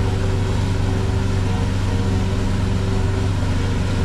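Power boat's engine running steadily under power, an even drone with a constant pitch, as it pushes against the ebbing tidal current.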